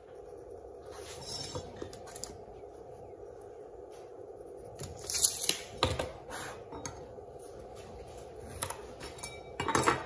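Light metallic clinks and clatters from a steel tape measure and a metal speed square being handled on a wooden board. The sharpest come about five seconds in and again near the end, over a steady low hum.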